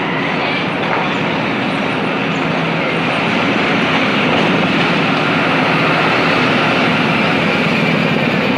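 Passenger train hauled by a ZCU-20 diesel-electric locomotive rolling steadily into a station, a continuous rumble of engine and wheels on rail.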